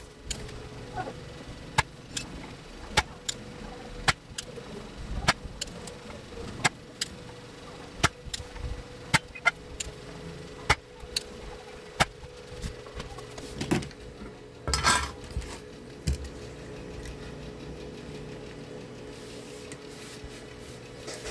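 Sharp clicks about once a second from a spring-loaded desoldering pump being fired to suck melted solder off the board's pins, with a longer burst of noise near the middle, over a faint steady hum.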